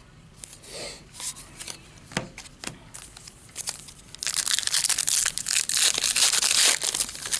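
A trading-card pack wrapper being torn open and crinkled: a loud, dense crackling from about four seconds in, after a few soft clicks and rustles of cards being handled.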